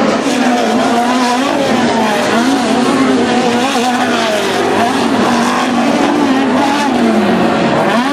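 Several off-road race trucks' engines running hard on a dirt track, overlapping, their pitch rising and falling as they rev up and back off.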